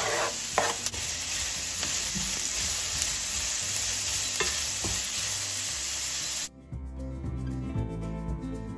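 Chopped onion sizzling as it fries in a hot stainless-steel frying pan, with a few scrapes and taps as the onion is pushed off a cutting board and stirred with a spatula. The sizzling cuts off suddenly about six and a half seconds in, and background music follows.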